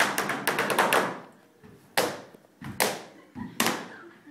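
A quick run of sharp taps and knocks in the first second, then three single loud knocks about a second apart, each dying away briefly.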